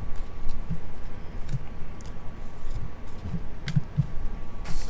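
Trading cards handled by hand: a few soft, irregular taps and knocks as the cards are squared up and put down, with a light click a little before the end. A rustle begins near the end as the next foil pack is picked up.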